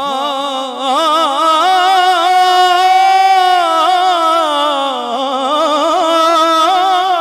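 Male naat reciter singing a long, drawn-out melismatic phrase of an Urdu devotional hamd into a microphone, the pitch wavering in quick ornamental turns, with a brief dip just under a second in.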